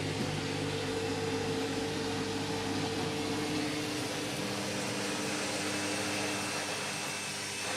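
Candy washing machine spinning on its final spin with an overloaded drum: a steady motor hum and whine with several tones, a couple drifting slightly in pitch.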